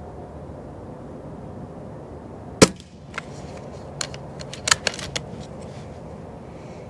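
A single shot from a moderated .22 Umarex Notos PCP air rifle: one sudden sharp crack about two and a half seconds in. A run of lighter clicks follows over the next two seconds or so.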